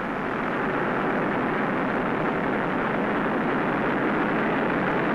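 A steady rushing noise with no pitch to it.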